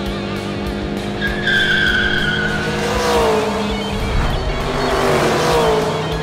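Cartoon race-car sound effects: engines running with swooping pitch, and a high tire squeal about a second and a half in, over background music with a steady beat.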